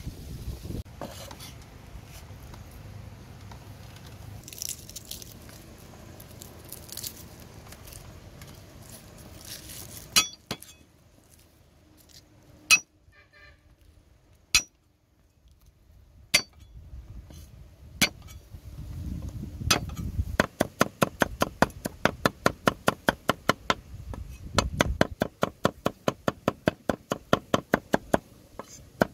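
Cleaver chopping on a thick wooden chopping block. First come single sharp chops a couple of seconds apart as garlic cloves are cut. About two-thirds of the way in it changes to rapid, even chopping at about four strikes a second as the garlic is minced.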